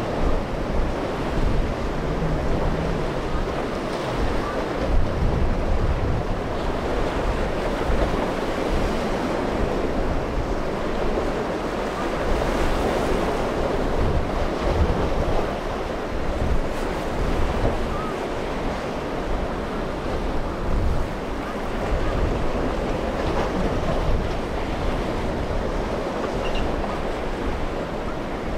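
Rough surf breaking and churning, with wind buffeting the microphone in gusty low rumbles.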